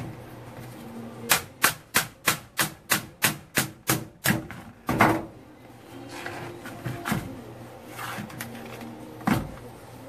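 A rapid run of about ten sharp knocks, about three a second, then a heavier knock, as the CV joint is knocked off the splined end of a Jeep Wrangler JK front driveshaft. Scattered lighter clunks and one more sharp knock follow.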